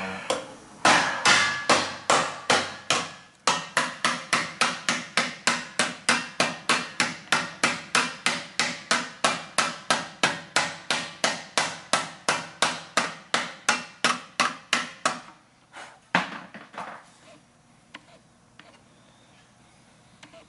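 Hammer striking a metal plate on a workbench in a fast, steady run of blows, about three a second, for some fifteen seconds. One or two last blows follow, then it stops.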